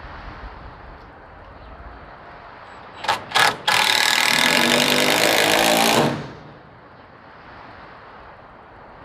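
Cordless power driver driving a screw into the lumber of a wall panel: two short blips of the trigger, then one steady run of about two and a half seconds that cuts off as the screw seats. Wind noise runs underneath.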